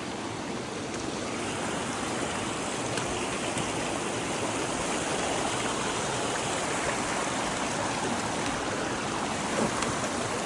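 Mountain creek water rushing steadily, growing a little louder after the first couple of seconds.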